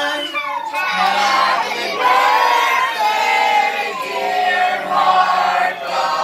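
A group of children and adults singing together, holding notes about a second each.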